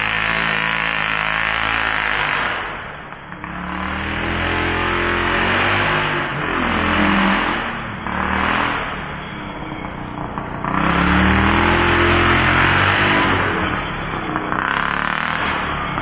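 29cc two-stroke petrol engine of a 1/5-scale RC truck revving up and down as it is driven. The revs drop away about three seconds in and again around the middle, then climb to their loudest shortly after.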